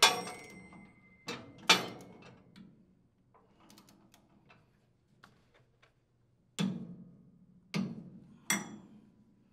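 Click-type torque wrench with a socket working the flywheel nut of a Briggs & Stratton small engine as it is torqued to 60 foot-pounds: a run of metallic ratchet clicks in the first few seconds and fainter ticks after, then three louder, sharp clicks with a brief ring near the end.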